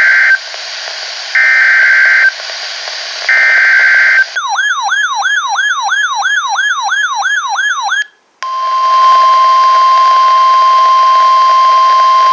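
NOAA Weather Radio emergency alert over radio hiss. It opens with three roughly one-second screeching bursts of SAME digital header data. A siren-like tone then sweeps downward about three times a second for nearly four seconds. After a brief drop to silence, the steady single-pitch 1050 Hz weather radio warning alarm tone sounds.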